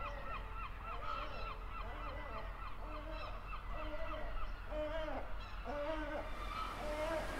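Background music: a fast repeating high figure, then a run of short held notes, each sounded in two octaves at once.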